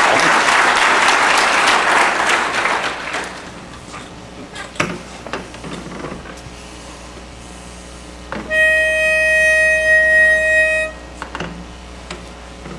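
Audience applause dying away over the first few seconds, then a single steady reed note from a pitch pipe, held for about two seconds, giving the barbershop quartet its starting pitch for the next song.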